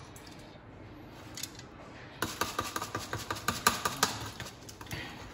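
A quick run of light clicks and clinks from kitchenware being handled, starting about two seconds in and lasting about two seconds.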